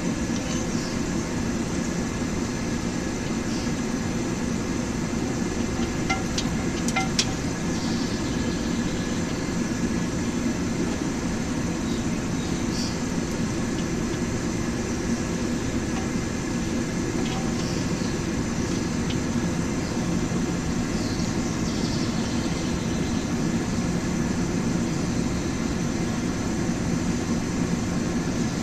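Blacksmith's forge running with a steady, even rushing noise while the bar stock heats, with a couple of faint clicks of metal about six seconds in.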